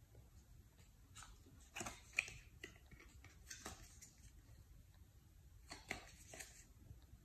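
Faint rustling and light ticks of stiff wax-paper strips being handled and fitted against a silicone-coated clay sculpture, with the sharpest tick about two seconds in and a few more near six seconds.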